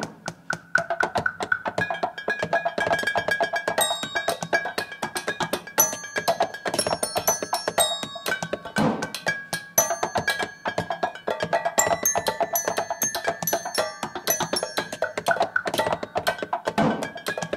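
Improvised percussion: fast, dense mallet strikes on a marimba and small percussion instruments, with a recurring high note and short high ringing tones over the top.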